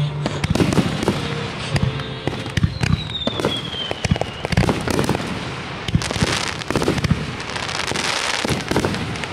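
Fireworks going off: a run of sharp bangs and cracks from aerial shells bursting. A high whistle falls in pitch about three seconds in, and a dense crackling hiss builds over the last few seconds.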